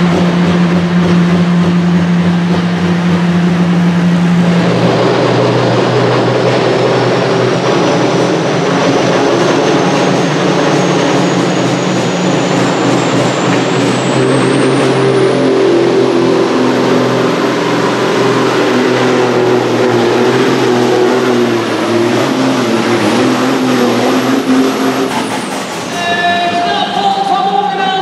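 Supersports pulling tractor's engines at full load dragging the weight sled, with a high whine that climbs steadily in pitch for about twenty seconds before the engines shut off. At the start a pulling tractor idles with a steady low drone, and music comes in near the end.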